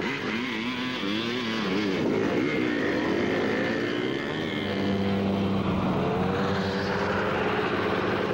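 Dirt bike engine revving up and down, its pitch swinging, then from about halfway a steadier, held engine note as small ATVs race.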